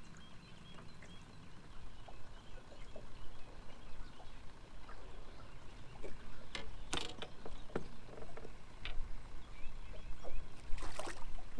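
Scattered clicks and knocks of fishing tackle being handled on a boat deck over a low steady rumble, with two louder sharp knocks, one about seven seconds in and one near the end.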